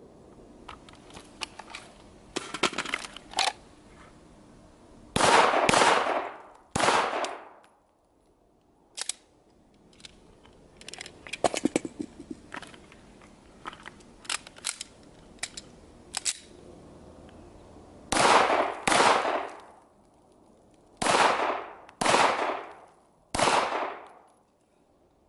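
A series of gunshots at a range, each trailing off in a ringing echo. A pair of loud shots comes about five seconds in, and a quick string of five, roughly a second apart, comes near the end, with fainter, sharper pops scattered between.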